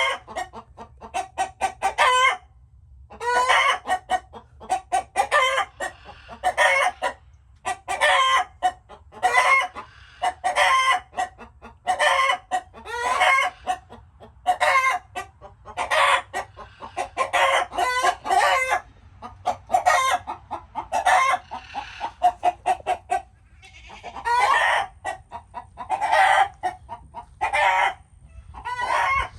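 Chickens clucking and cackling in repeated runs of quick calls, a new run about every second or so.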